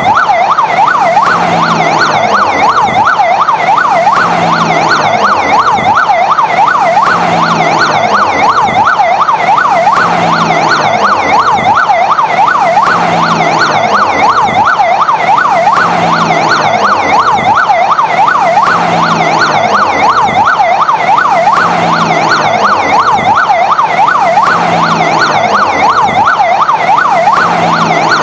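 Fire engine siren in fast yelp mode: a loud, rapid up-and-down wail repeating about four times a second, steady and unbroken.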